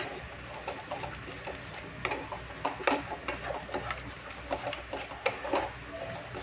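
Wooden spatula stirring a thick masala gravy in a steel pot, scraping and knocking against the pot in irregular clicks.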